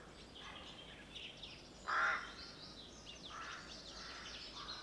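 Outdoor birdsong: many small birds chirping and singing, with one louder, short call about two seconds in.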